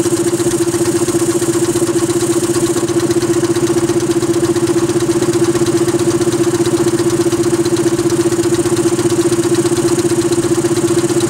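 Gasoline engine of a RolAir 4090HK17 portable air compressor running steadily just after a cold-weather pull start, driving its belt-guarded pump with an even, unchanging note.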